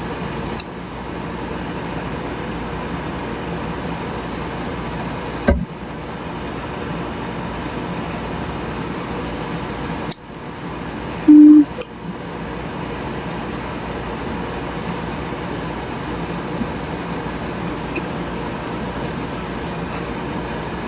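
Steady background hum with a few sharp clicks. A short, loud beep sounds about eleven seconds in.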